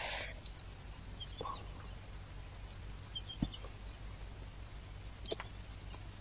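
Quiet outdoor bush ambience: a low steady hum under faint, scattered bird chirps, with a couple of soft clicks, the sharpest about halfway through.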